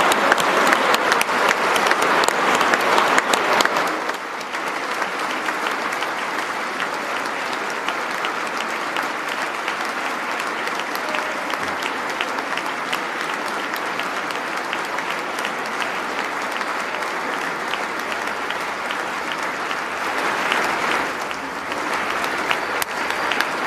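Large audience applauding without pause, dense overlapping clapping. Louder for the first four seconds, then steady, with a brief swell near the end.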